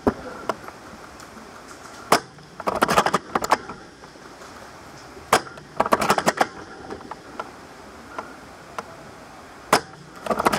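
Airsoft guns firing in a game: a few single sharp cracks, and three short rattling bursts of rapid clicks.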